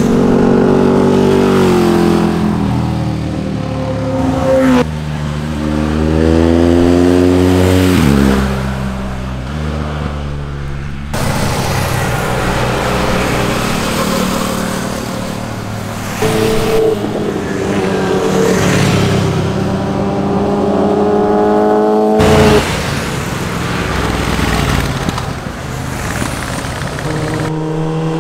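Motorcycle engines revving as bikes accelerate past, the engine pitch climbing and dropping repeatedly as they shift and pass, in several short clips that cut abruptly from one to the next.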